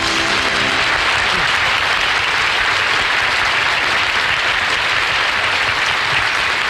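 Studio audience applauding loudly and steadily, a dense wash of clapping, as the last sustained note of the song dies away in the first second.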